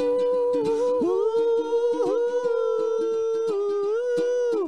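Wordless humming of long held notes over a strummed ukulele, the melody dipping briefly about two seconds in, as part of an improvised song.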